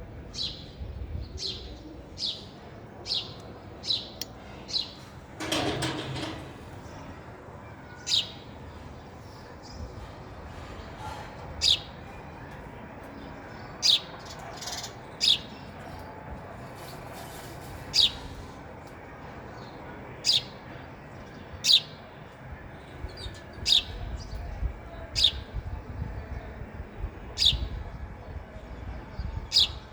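Sparrow chirping: single short, sharp cheeps, about one a second at first and then one every couple of seconds. A brief rustle comes about six seconds in.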